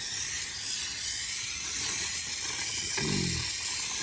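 Gas brazing torch burning on a gentle flame: a steady hiss. A short low hum of a man's voice about three seconds in.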